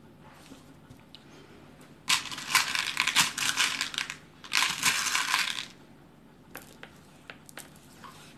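Small beads rattling and clicking as they are tipped out onto a tabletop, in two bursts of about two seconds and one second, followed by a few faint clicks.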